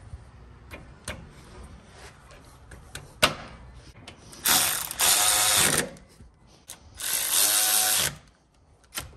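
Ratchet running the brake caliper bolts in, in two runs of about a second each, with a few sharp metal clicks and taps between.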